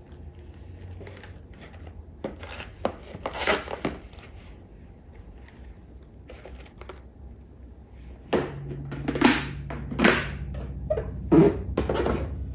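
Close-up kitchen handling sounds of cabbage wedges wrapped in paper towel being set into a plastic storage container: a few rustles and knocks, then from about eight seconds in a louder run of them over a low steady hum.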